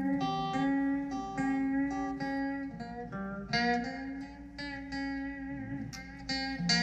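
Telecaster electric guitar played solo: a melodic line of picked single notes and two-note chords, several per second, with lower notes ringing under the higher ones.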